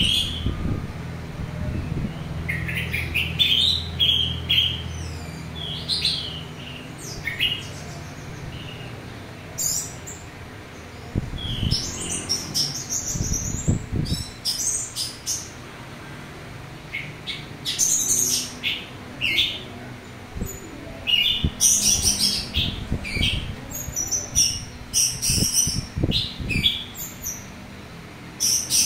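Orange-headed thrush singing loudly in short, varied, quick-changing phrases with rough fill-in notes, coming in bursts separated by pauses. A low hum sits under the song for the first few seconds.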